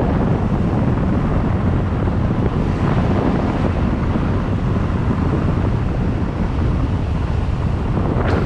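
Steady, loud wind buffeting the microphone of a camera riding on a moving motorbike, mixed with the bike's engine and road noise.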